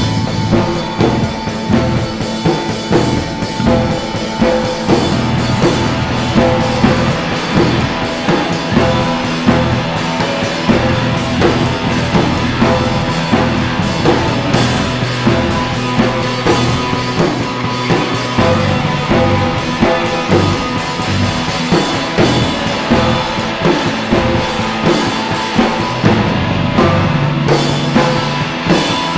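Music: a song with a drum kit keeping a steady beat over held low notes.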